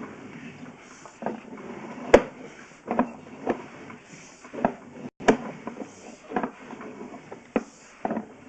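Sewer inspection camera and its push cable being worked through the drain pipe: irregular knocks and clacks, roughly one a second.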